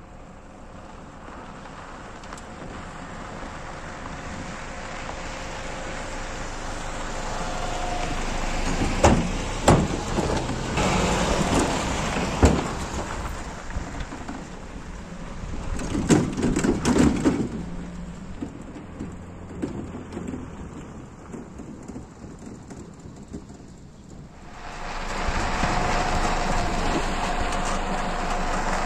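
Pickup truck driving on a rough dirt and gravel track: engine and tyres on gravel growing louder as it comes closer, with several sharp knocks and rattles as it goes over bumps. Near the end, heard from on the moving truck itself, a loud steady rush of tyre and wind noise.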